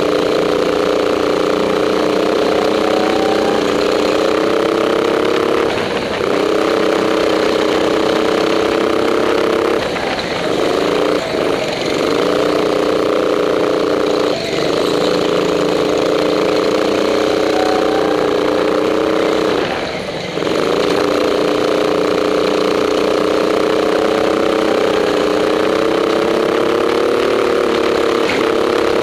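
Go-kart's small petrol engine heard from on board, running hard at a fairly steady pitch and dipping briefly about four times as the throttle is lifted for corners.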